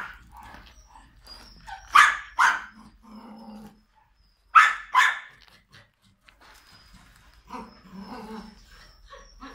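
Dog barking: two pairs of sharp barks, about two seconds in and again about four and a half seconds in, with quieter, lower sounds between them and near the end.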